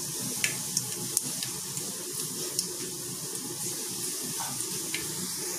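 Mustard and fenugreek seeds sizzling in hot oil for tempering: a steady hiss with scattered small pops as the seeds splutter.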